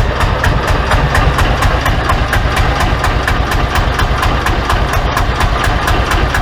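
Sailboat's inboard engine idling steadily with an even clatter of about five strokes a second. The tick from its loose flywheel bolts seems gone now that the bolts have been tightened.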